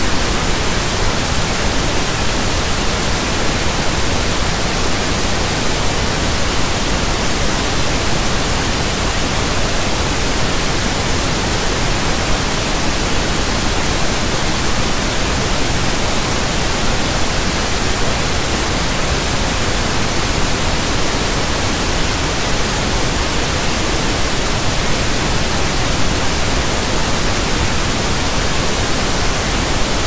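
Steady pink noise, an even soft static hiss like a radio not tuned to a station, unchanging throughout.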